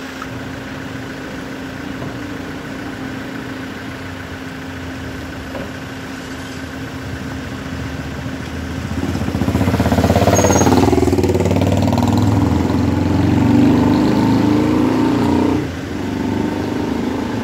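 A motor vehicle engine idling steadily. About nine seconds in, a louder engine runs close by for some six seconds, then drops off suddenly back to the steady idle.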